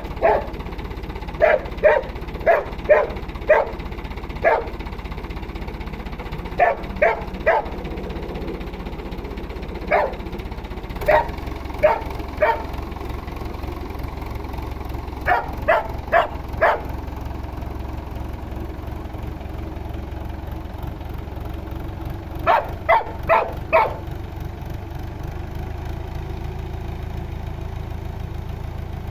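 A dog barking in bouts of a few sharp barks at a time, with long pauses between, over the steady low hum of a tractor engine running.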